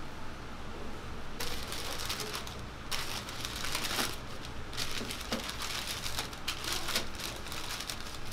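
Sheets of parchment paper crinkling and rustling as they are handled and folded back over a stack of crepes, starting about a second and a half in, with many small sharp crackles.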